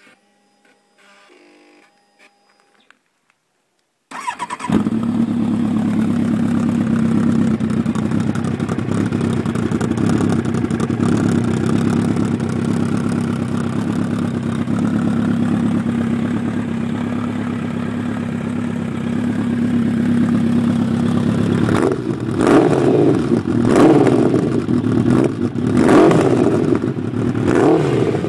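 2003 Kawasaki Z motorcycle engine, fitted with a Danmoto aftermarket exhaust, starting up about four seconds in and settling into a steady idle. Near the end the throttle is blipped several times in quick succession, each rev rising and falling back to idle.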